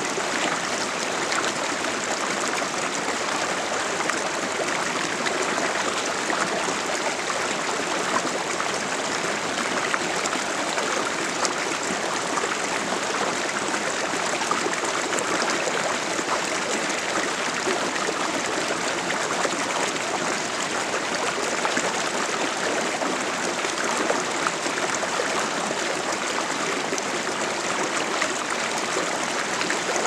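Shallow creek water rushing and rippling over a stony bed, a steady unbroken sound with no pauses or separate events.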